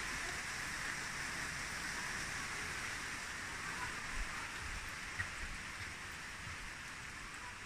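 Steady rain falling, an even hiss, with a couple of small low knocks about four and five seconds in.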